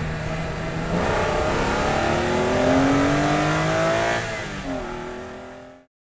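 BMW E46 M3's S54 straight-six, on its stock intake and airbox, heard from inside the cabin while the car is driven. The engine note climbs steadily in pitch under acceleration for about three seconds, drops back about four seconds in, then fades out.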